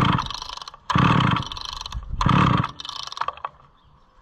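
Homelite Super XL chainsaw being pull-started: the recoil starter cord is yanked again and again, about a second and a quarter apart, and the engine does not catch. It has compression and spark, and the owner bets the carburetor needs a rebuild.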